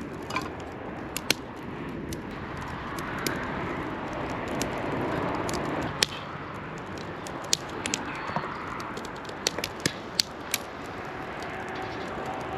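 Wood fire crackling: sharp pops and snaps scattered throughout, several in quick succession in the second half, over a steady rushing noise that swells in the middle. A faint, steady whistling tone comes in near the end.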